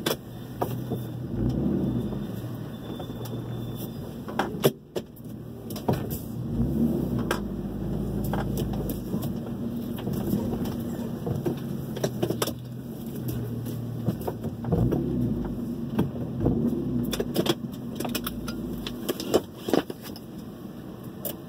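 A truck engine heard from inside the cab as the truck rolls slowly along a dirt trail. Its low rumble swells and eases several times, with scattered sharp knocks and rattles from the cab.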